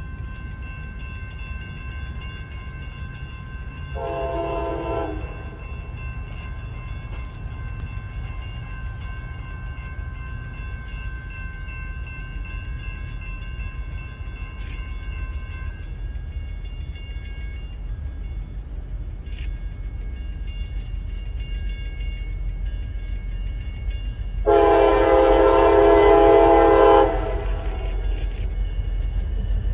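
Horn of an approaching CSX diesel locomotive: one short blast about four seconds in, then a long loud blast near the end, over the low rumble of the train that grows as it nears. A faint steady high tone sounds through the first half and then stops.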